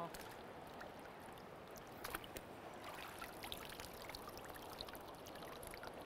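Shallow river water trickling and lapping around hands holding a steelhead in the current to revive it, with a few small splashes about two seconds in.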